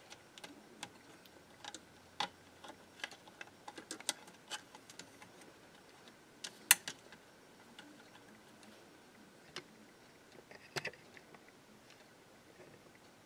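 Irregular small clicks and taps of hand tools and loose screws on the metal chassis of an old tube-type reel-to-reel tape recorder being unscrewed and taken apart. The sharpest click comes about halfway through, with a quick cluster of taps later.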